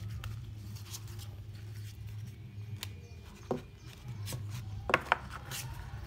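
Printed card stock and paper being handled and shifted on a cutting mat: light rustles and a few sharp taps, the loudest two in quick succession about five seconds in, over a steady low hum.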